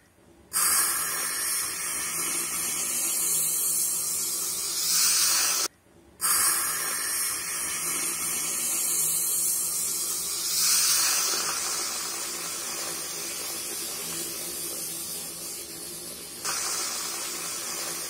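Milk poured onto a freshly heated clay pot holding coffee powder, hissing and bubbling as it boils up and foams over into the cup. The sound cuts out briefly just before six seconds in, then resumes.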